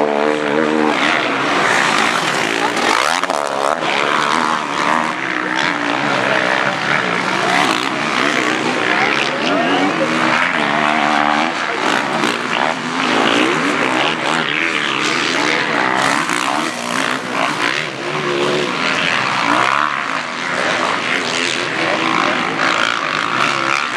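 Motocross dirt bike engines racing on a track, revving hard and shifting so that the pitch repeatedly rises and falls as bikes pass.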